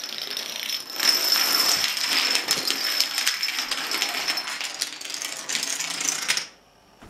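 A chain of dominoes toppling one after another, a dense, fast clatter of small clicks that stops abruptly about six and a half seconds in.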